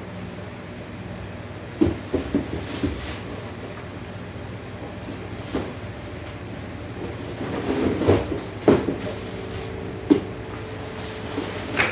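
Scattered knocks and clatters of hard parts being handled, about nine in all and loudest near the middle, over a steady background hum.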